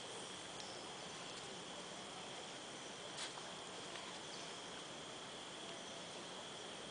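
Faint, steady high-pitched trilling of insects in the background, one unbroken tone over a soft hiss, with a single brief click about three seconds in.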